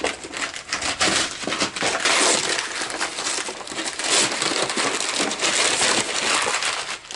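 Wrapping paper being torn and crumpled off a cardboard box by hand, a continuous crackling and ripping.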